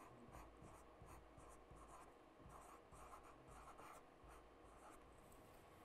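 Faint scratching of a felt-tip marker writing on a board in short strokes, stopping near the end.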